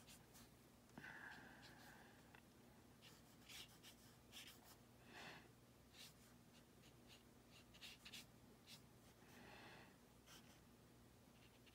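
Faint soft strokes and swishes of a watercolour brush on paper, a few scattered dabs, near silence otherwise.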